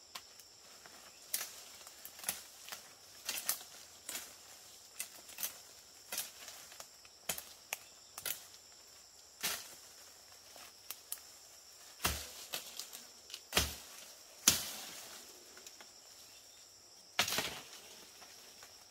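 Irregular clicks and knocks, with a few louder sharp knocks in the second half, over a steady high insect hum.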